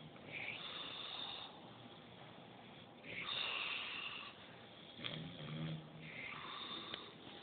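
A man snoring in his sleep: a low buzzing snore alternates with rasping, hissy breaths, in a slow cycle that repeats every few seconds.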